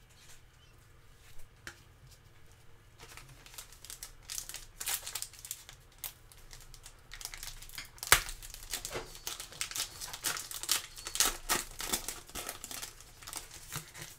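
Foil wrapper of a Panini Select football card pack being torn open and crinkled by hand. The irregular crackling builds from about three seconds in, with one sharper crack about eight seconds in.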